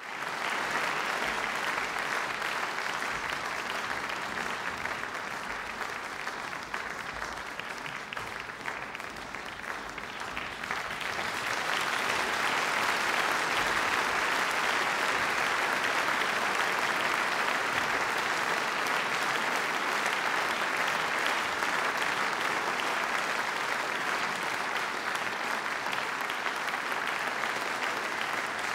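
Audience applauding, growing louder about a third of the way in and holding steady to the end.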